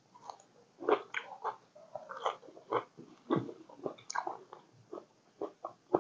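A person biting and chewing a mouthful of raw cucumber and Isan sausage close to the microphone, with short, wet, crunchy chewing noises about twice a second.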